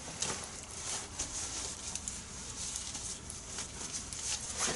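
Faint handling noise of work on a classic Mini rear brake assembly: a few light clicks and rustles as tools and parts are moved about, over a steady faint hiss.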